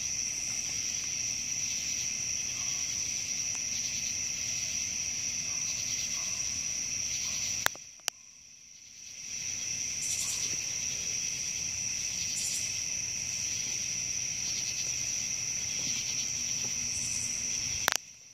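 A steady chorus of night insects, crickets and the like, trilling high and unbroken. About eight seconds in and again near the end, sharp clicks break it and the chorus briefly drops away.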